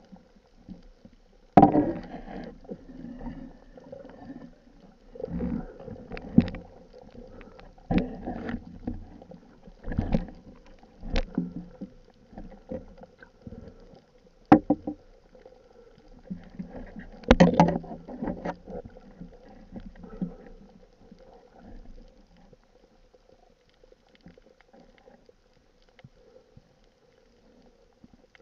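Irregular muffled knocks, thuds and scrapes heard underwater as a speared grouper is handled on a steel spear shaft, several sharp clacks among them, growing quieter near the end.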